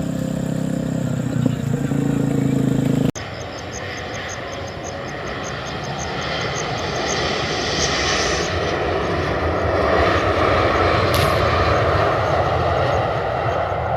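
Airplane engines passing close by: a broad engine noise that builds over several seconds, peaks, and begins to fade near the end. Before this, a steady low engine hum cuts off abruptly about three seconds in.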